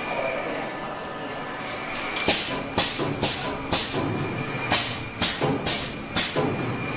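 HEPA glass-fibre pleating machine running with a steady mechanical hum. From about two seconds in come eight short, sharp hisses of air, in two runs of four about half a second apart, typical of its pneumatic actuators exhausting.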